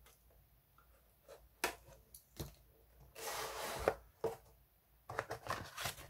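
A cardboard product box being slit with a small pocket knife and opened by hand: a few sharp scrapes and clicks, about a second of cardboard rustling midway, then a flurry of paper and cardboard handling near the end as the contents come out.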